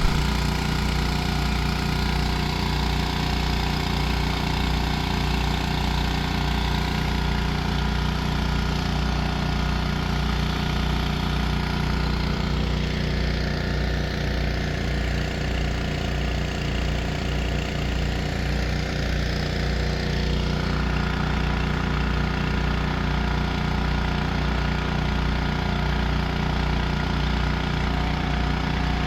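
Small single-cylinder gasoline engine, the Predator 212 that powers the homemade drilling rig's hydraulics, running at a steady speed while the rig drills.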